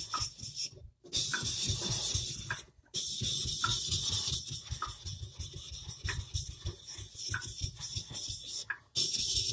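Knife bevel scraping back and forth on a wet 1000-grit Naniwa Chosera whetstone, with strokes repeating roughly once a second. The knife is a Moritaka honesuki with Aogami Super steel, and it is being worked with light pressure to polish out the coarser scratches left by the 400-grit stone.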